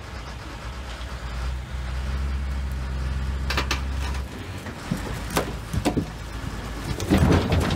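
A vehicle engine running with a steady low rumble that stops abruptly about four seconds in, followed by several sharp knocks and clatters.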